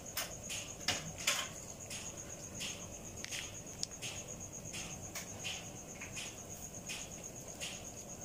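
Crickets trilling in a steady, high, rapidly pulsing tone, with irregular short crunching clicks of a cat chewing pieces of chicken, the loudest two about a second in.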